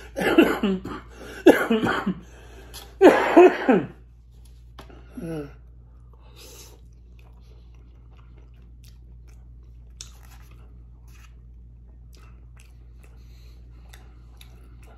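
A man coughing and clearing his throat in three loud bouts over the first four seconds, with a shorter one about five seconds in.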